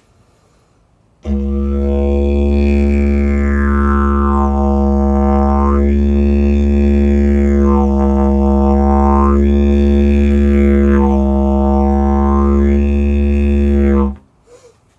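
Didgeridoo playing one long drone on a steady low note. Its bright upper overtones sweep up and down about four times as the player tightens and loosens his lips. It starts about a second in and stops shortly before the end.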